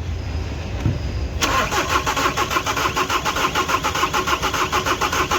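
Audi Q3 2.0 TDI diesel engine being cranked on the starter: about a second and a half in, a rapid, even pulsing starts and keeps on without the engine settling into a run. It is a long crank, which the mechanic puts down to air not properly bled from the fuel system after the head rebuild.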